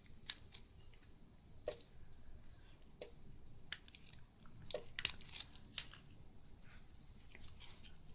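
Screen of a Fiio M6 music player being pried from its glued frame with a blade and pry tool: irregular small clicks, cracks and scrapes over a faint steady hiss.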